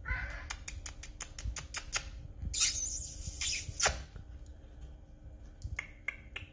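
A British kitten playing with a feather wand toy on a plastic windowsill: a quick run of light taps and clicks, several a second, then a rustling scrape lasting about a second and a half, and a few more taps near the end.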